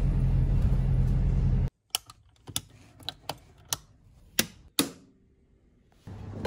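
A steady low rumble of a moving vehicle heard from inside cuts off abruptly, followed by about eight sharp separate clicks of plastic wall rocker light switches being flipped. Near the end a steady machine hum begins from an espresso machine.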